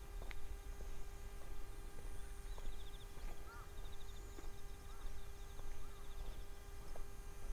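Footsteps on an asphalt country road with wind rumbling on the microphone. Faint high trills and a few soft chirps sound in the background.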